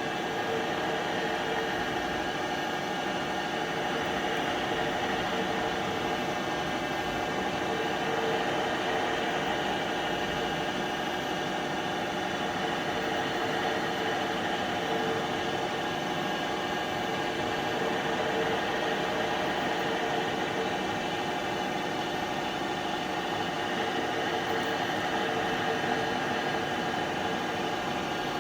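Trak DPM5 CNC bed mill cutting a pocket, its spindle running at 1200 RPM in high gear: a steady machine hum with a mid-pitched tone that swells and fades every few seconds as the axes move. The machine runs quietly.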